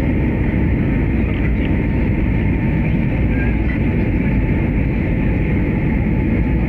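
Steady cabin noise of a jet airliner descending on approach: engines and rushing air heard from a window seat, a deep, even rumble with a faint steady whine above it.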